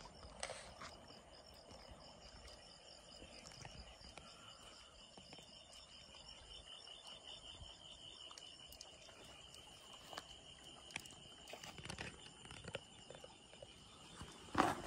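Crickets trilling steadily in a fast, even pulse, with a few faint clicks and a louder knock near the end.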